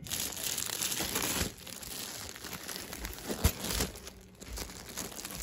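Clear plastic wrapping on packaged dress-fabric pieces crinkling irregularly as they are handled and shifted, with a couple of sharper crackles.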